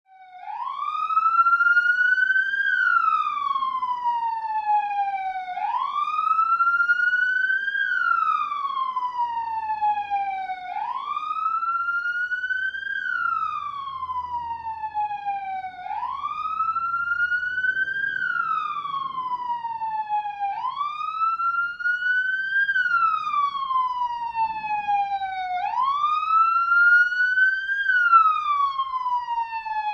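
Police siren sounding a slow wail: its pitch climbs and then falls back in long sweeps, about once every five seconds, six times over.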